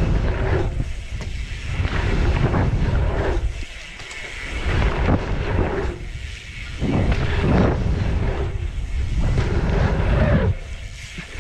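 Wind rushing over the camera microphone and knobby tyres rolling on packed dirt as a mountain bike rides a dirt jump line. The rumble eases every two to three seconds between the jumps.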